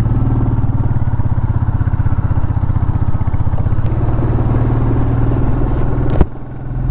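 Royal Enfield Meteor 350's single-cylinder engine running steadily under way, heard from the rider's seat. About six seconds in there is a sharp click and the engine sound drops and goes quieter.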